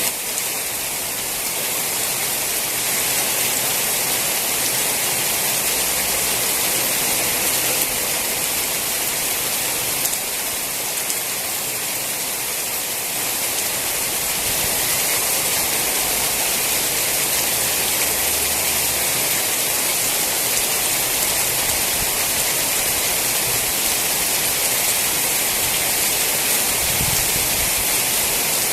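Steady rain falling: a dense, even hiss of raindrops that does not let up.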